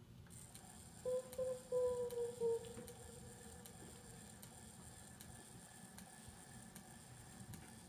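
Turntable stylus riding a scratched record label: a steady hiss with a faint click about every three-quarters of a second. Between about one and two and a half seconds in, a few short Morse code beeps come off an off-center record, their pitch sagging slightly.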